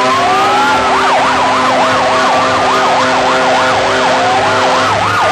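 Electronic vehicle siren changing from a slow wail to a fast yelp, about three up-and-down sweeps a second, then back to a slower wail near the end. A steady low tone drones beneath it and stops about a second before the end.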